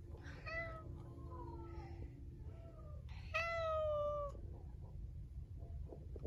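Domestic cat meowing about four times, each meow falling in pitch, the longest and loudest one a little past halfway.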